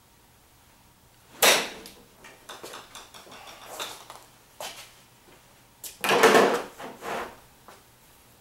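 A golf club strikes a ball off a hitting mat with a sharp whack about a second and a half in. Footsteps and small knocks follow, then a louder half-second clatter about six seconds in, and a few more light knocks.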